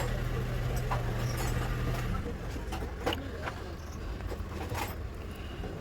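Scattered light metallic clinks and taps of tools and parts being handled during a wheel bearing job, over a low steady hum that drops away about two seconds in.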